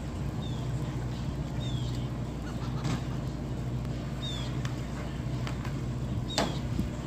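Steady low hum of an idling boat engine, with a few short, falling high-pitched bird chirps and a sharp knock about six seconds in.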